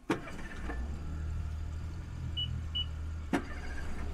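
Twin Honda 50 hp four-stroke outboards idling with a steady low hum, super quiet and running in great condition. Two sharp knocks, one just after the start and one near the end, and two brief high beeps in the middle.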